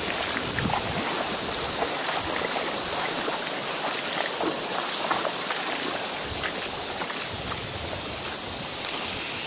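Shallow river rushing steadily over rocks, with scattered small knocks of footsteps on the stones.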